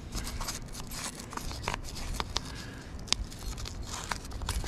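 Small brass wire brush scrubbing the solvent-wet metal turret of a Hardinge HC chucker lathe: a scratchy rasping with scattered sharp ticks.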